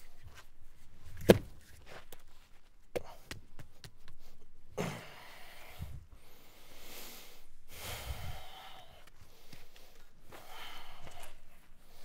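A heavy stone block knocks once on the ground as it is rocked and set down to check that it sits level, followed by a couple of lighter taps, then several soft breathy rustles.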